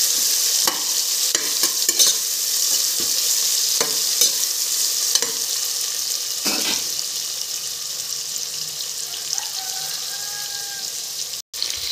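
Sliced onions sizzling in hot oil in a pressure cooker, frying toward golden. In the first half a spoon scrapes and clicks against the pot as they are stirred. The sizzle eases a little toward the end and breaks off briefly just before it.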